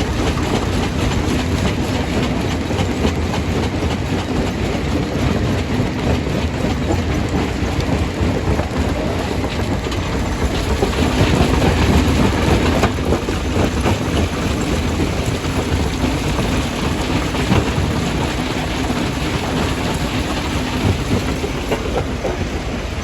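Primary jaw crusher running and crushing stone: a continuous loud clatter and grinding of rock breaking in the jaws, with many small knocks, swelling slightly about halfway through.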